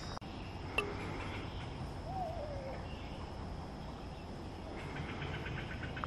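Summer woodland ambience: a steady high insect drone, with a short call that falls in pitch about a second in, a brief wavering call around two seconds in, and faint repeated chirps near the end.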